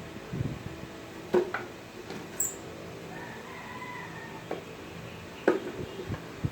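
A faint, drawn-out bird call lasting just over a second, with a few sharp knocks and taps before and after it.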